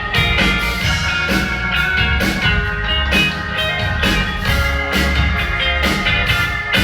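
Live pop-rock band playing an instrumental passage with drum kit, guitar and keyboards, heard through loud concert amplification.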